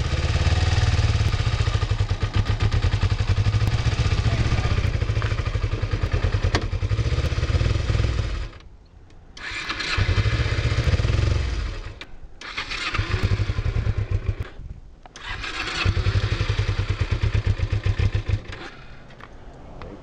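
Kawasaki Ninja 250R parallel-twin engine running, then cutting out about eight seconds in. It is restarted three times, and each time it runs only two or three seconds before dying again: the bike stalls at idle.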